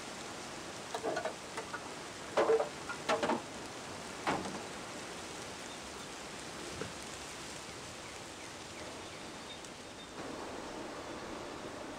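Steady outdoor ambient hiss with a handful of short knocks and clatters in the first few seconds, ending in a duller thump about four seconds in. Around ten seconds in the background hiss changes to a different, slightly louder steady noise.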